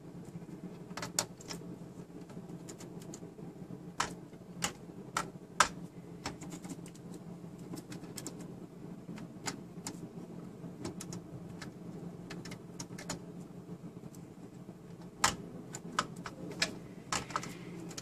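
Scattered sharp clicks and light rattles of a braided cable bundle and plastic connectors being handled and plugged in on a microserver's motherboard tray. They come in small clusters over a steady low hum.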